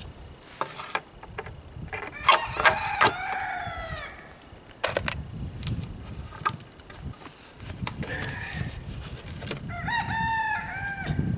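A rooster crows twice, about two seconds in and again near the end, over scattered knocks and clatter of pallet-wood boards being handled.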